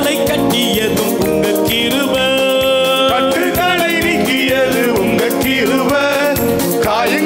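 Live praise and worship song: a man singing into a microphone over a band with a steady drum beat.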